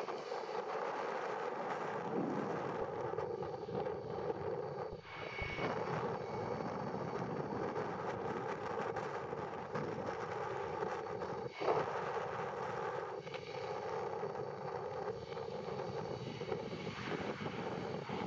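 Jet airliner engines running, a steady even noise with a brief drop about five seconds in and a short knock near twelve seconds.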